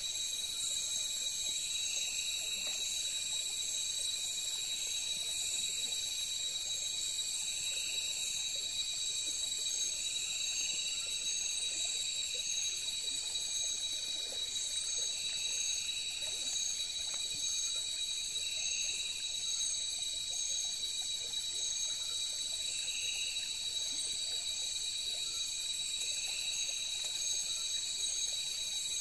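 Night insect chorus of crickets: several high, steady trills running on without a break, with a lower call pulsing every two seconds or so.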